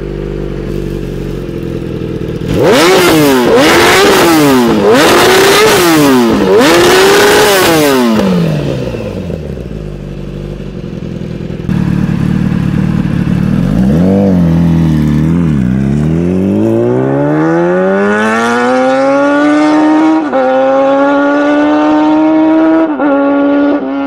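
Kawasaki ZX-10R's inline-four through an Akrapovic slip-on exhaust: ticking over, then blipped hard in a string of quick revs. It then pulls away and accelerates, its pitch climbing steadily with two gear changes near the end.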